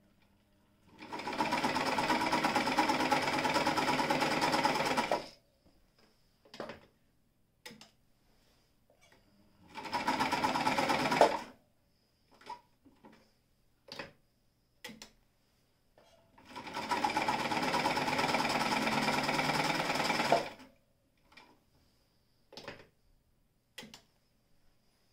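Brother Window-Matic semi-industrial sewing machine running and stitching in three bursts, about four, two and four seconds long, with small clicks and knocks in the pauses between them.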